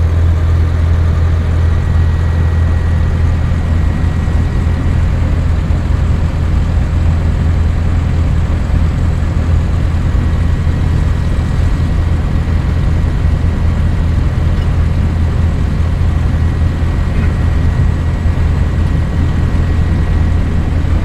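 Socata TB-9 Tampico's four-cylinder Lycoming engine and propeller running steadily at low taxi power, a loud, even drone heard from inside the cabin.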